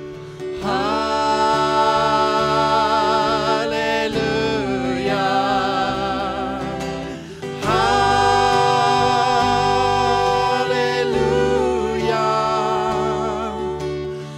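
Worship music: a singer holds long notes with vibrato over steady instrumental backing, in phrases of a few seconds each.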